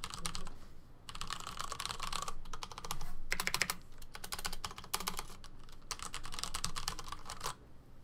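Das Keyboard 4 mechanical keyboard with Cherry MX Brown switches and stock ABS keycaps being typed on: fast runs of key clacks in several bursts with short pauses between them, stopping shortly before the end.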